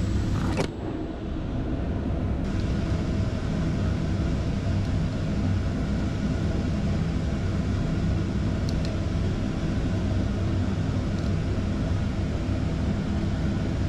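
Pet blow dryer running steadily, a continuous rush of air noise.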